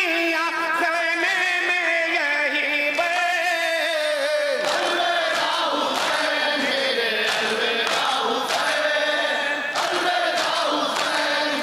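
A group of men chanting a noha, a Shia mourning lament, in unison with long held notes. From a little before halfway through, regular slaps of hands beating on chests (matam) keep time under the singing.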